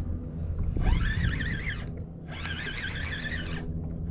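Fishing reel being cranked to bring in a hooked fish. Its gears give a wavering whine in three spells of about a second and a half each, with short pauses between turns.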